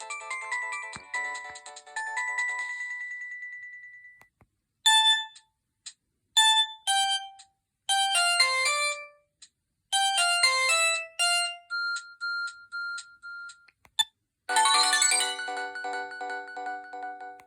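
Preloaded polyphonic ringtones of a Samsung GT-E1150 phone playing one after another. One tune ends on a long held high note that fades out, a jumpier tune of short electronic phrases follows after a brief gap, and a denser, fuller tune starts after a short click about three-quarters of the way through.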